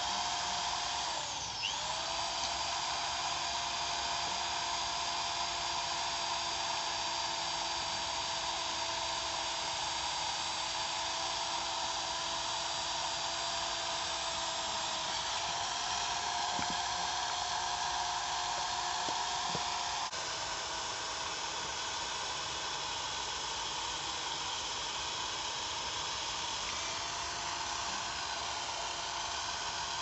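Small electric drill's motor running with a steady high whine. Its pitch dips briefly about a second and a half in as it takes load, then recovers, and the level drops slightly about 20 seconds in.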